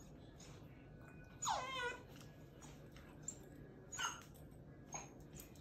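Maltipoo dog whining: one wavering whine falling in pitch about a second and a half in, then two short whimpers near the end.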